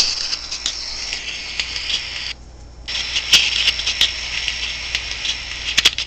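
Hissing static with scattered clicks and crackles from an EVP session recording played back through a small handheld recorder's speaker. The hiss cuts out for about half a second a little over two seconds in.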